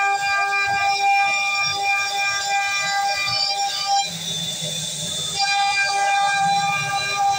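CNC wood router's spindle whining at a steady high pitch as it carves a wooden relief panel. The whine drops out for about a second and a half around the middle, leaving a lower rumble, then comes back.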